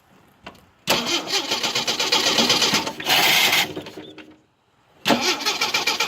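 A Jeep's starter cranking the engine without it catching: a hard start. The cranking runs about three seconds from about a second in, stops, then a second crank begins about five seconds in.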